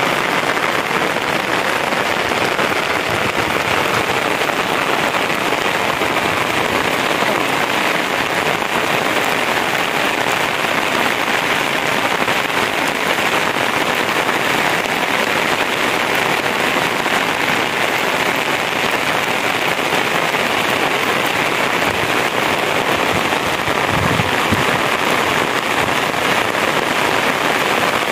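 Steady rain falling, an even hiss that runs without a break, with a brief low thump near the end.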